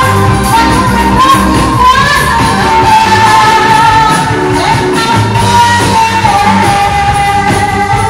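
Dance music from a live band with a singer, over a steady beat and bass, with long held notes in the melody.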